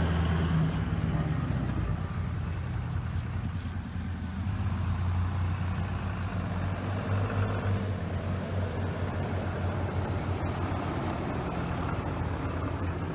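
Truck engines running at low speed as a chopped Toyota LandCruiser 200 Series and a 2021 Ram 2500 pickup roll slowly past close by: a steady low engine hum.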